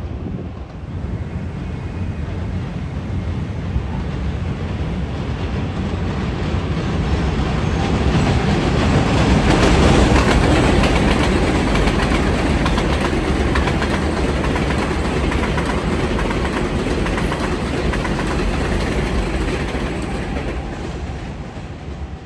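R188 subway train on the elevated 7 line running along the steel viaduct, its wheels and trucks clattering on the rails. It grows louder to a peak about ten seconds in, then fades gradually.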